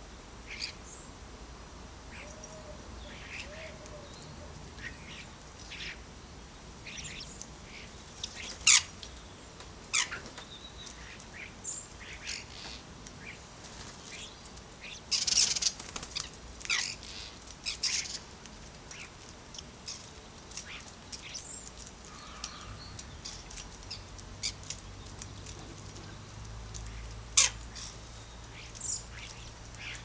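Common starlings at a feeder: scattered short chirps, whistles and clicks, with a burst of wing flapping about halfway through as a bird flies in.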